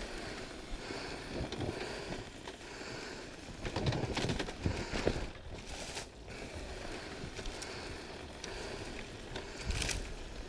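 Dirt bike coasting downhill on a dirt trail, its overheating engine not driving it: a rolling rumble of tyres on dirt with rattles and knocks from the bike over bumps. The knocks are loudest about four to five seconds in and again near the end.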